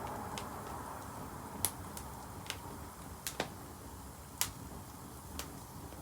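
Wood bonfire crackling: sharp irregular pops, about seven in six seconds, over a faint low rushing noise.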